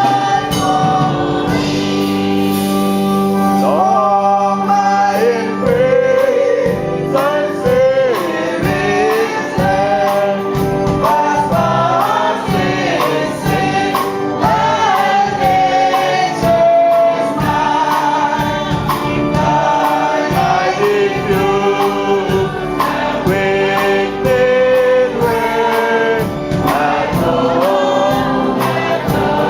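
Choir singing a gospel song in harmony, with a steady beat under the voices.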